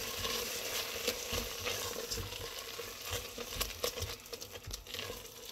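Spoon stirring and scraping thick grated carrot mixture in a metal pan, with a faint sizzle underneath and many small scrapes and clicks.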